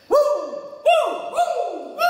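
Short musical sting of three pitched notes, each swooping quickly up in pitch before holding and fading.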